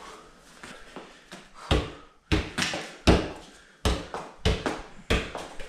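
Soccer ball being juggled on the knees and feet: a run of short thuds, one touch about every half second to second, starting about a second and a half in.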